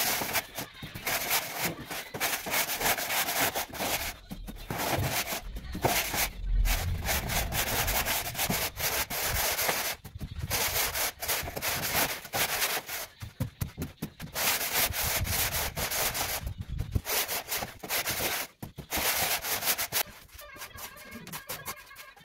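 A long straightedge scraped back and forth over a bed of dry sand-cement mortar to screed it level: repeated gritty scraping strokes with short pauses, easing off near the end as a hand trowel works the mortar.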